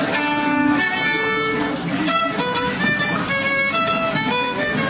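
Fiddle played live close up, bowing a tune of short notes that step quickly from pitch to pitch.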